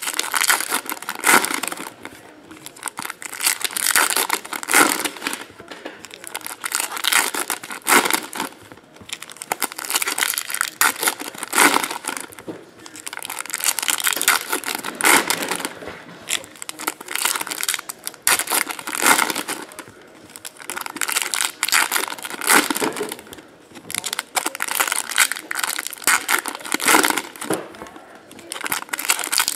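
2017 Topps Chrome baseball card pack wrappers crinkling and tearing as packs are opened by hand, in repeated bursts a second or two long.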